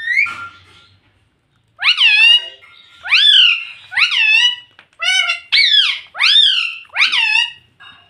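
Pet rose-ringed parakeet calling: after a short call at the start, a run of about seven loud, high calls, each rising and then falling in pitch, roughly one every three-quarters of a second.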